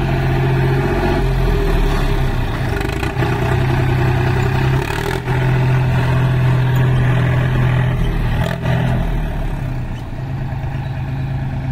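John Deere 5036D tractor's three-cylinder diesel engine running steadily under way on rough ground, its level dropping slightly near the end.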